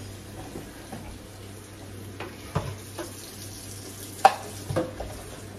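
Kitchen tap running into a stainless steel sink, a steady hiss of water, with a few sharp clinks and knocks of a metal saucepan and dishes against the sink, the loudest a little over four seconds in.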